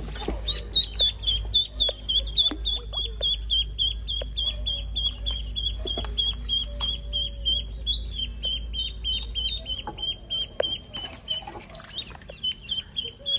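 Duckling peeping over and over, rapid short high peeps about three a second, with light splashes and clicks of hands handling things in the water.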